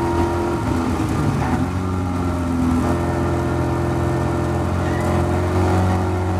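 Caterham Academy race car's four-cylinder engine heard onboard at high revs, lifting off and changing down about a second and a half in for a corner, then pulling and climbing steadily in pitch as the car accelerates out.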